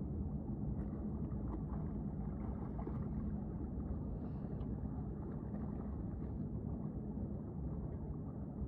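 A boat motor running steadily at one pitch, heard muffled, with a few faint ticks over it.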